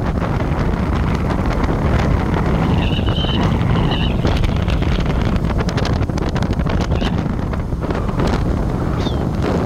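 Wind buffeting the microphone over steady road and engine noise from a moving vehicle. A few short high chirps cut through about three seconds in and again near the end.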